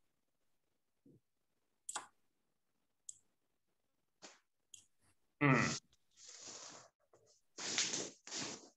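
Scattered faint clicks and rustles, then a brief pitched sound about five and a half seconds in, followed by longer breathy, rustling noises near the end.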